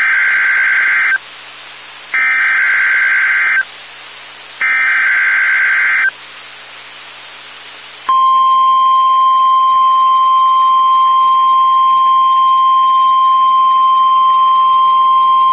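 NOAA Weather Radio emergency alert over a radio receiver: three short bursts of warbling SAME data tones, each about a second and a half long with brief hissy pauses, then, about eight seconds in, the steady single-pitch 1050 Hz warning alarm tone. Together they mark the start of a (test) tornado warning broadcast that sets off weather radio alarms.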